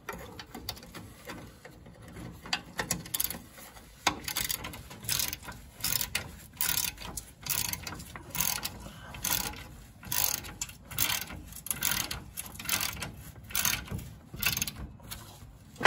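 Hand ratchet wrench clicking as the strut-rod-to-lower-control-arm bolts are tightened. There are a few scattered clicks at first, then from about four seconds in, steady back-and-forth strokes come about twice a second.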